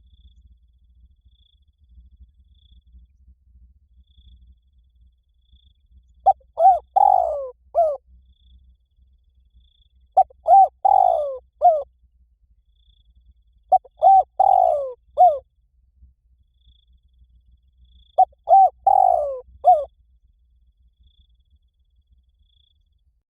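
Spotted dove cooing: four phrases about four seconds apart, each a quick run of short coos around a longer, drawn-out middle note. This is the 'liu tan' style of call that Thai keepers play to get a caged spotted dove to coo back.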